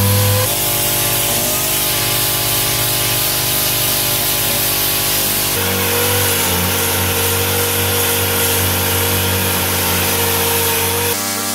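Air-powered random orbital sander running steadily against a fibreglass boat hull, sanding painted graphics off down to the gel coat: a steady hum with a strong hiss. Its pitch and tone shift abruptly about half a second in and again about five and a half seconds in.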